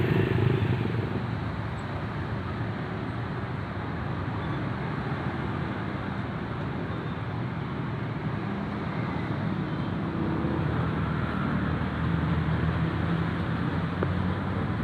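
Road traffic passing at a level crossing: a steady rumble of vehicle engines and tyres, growing a little louder about ten seconds in.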